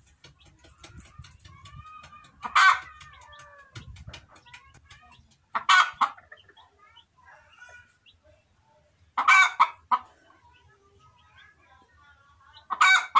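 Chicken calls: four loud, short calls spaced about three and a half seconds apart, with faint softer calls and chirps between them.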